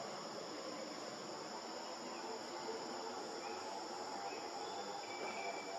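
Steady, continuous high-pitched chorus of insects such as crickets or cicadas, with a few faint short chirps in the second half.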